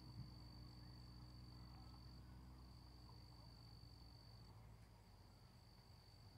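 Near silence outdoors at night: faint crickets giving a steady high trill, over a low hum that fades out about halfway through.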